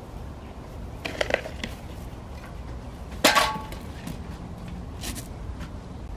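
Metal striking something hard: a few quick knocks about a second in, then one loud clang about three seconds in that rings briefly, and a fainter knock near the end.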